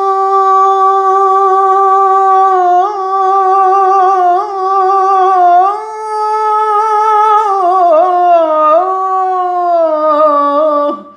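A man singing a gazel in the Hicaz makam, unaccompanied: one long held vowel with small ornaments, stepping up in pitch about six seconds in, then sliding down in wavering turns and breaking off near the end.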